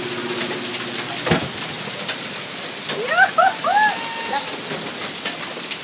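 Hail falling hard on the grass, street and roofs: a steady hiss packed with small ticks of stones striking. About three seconds in, three short high calls rise and fall in quick succession.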